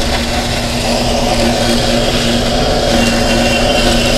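Electric mixer-grinder running at a steady pitch, its motor whirring as the blade grinds a thick mix of coconut cream, milk, cashews and ice.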